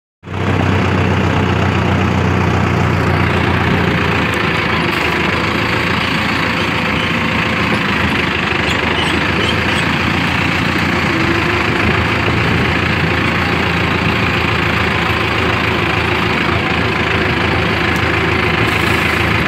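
Mahindra farm tractor's diesel engine running steadily as the tractor drives along, a constant low hum.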